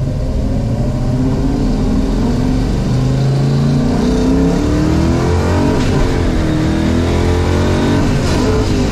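1972 Plymouth Cuda's V8, heard from inside the cabin, accelerating through the gears with a manual shifter: the revs climb, fall back with an upshift about six seconds in, climb again and fall back with another shift near the end.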